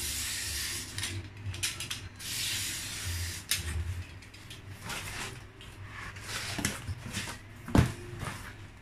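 Corrugated cardboard being cut and pulled apart into strips by hand: bursts of scraping, tearing noise lasting about a second each, with a few sharp taps as strips are set down on a cutting mat, the loudest tap near the end.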